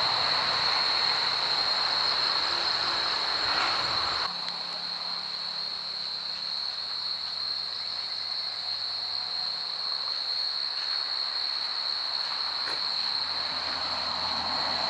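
Cicadas singing: a loud, steady, high-pitched whine that never breaks. For the first four seconds a rushing hiss sits under it and cuts off abruptly.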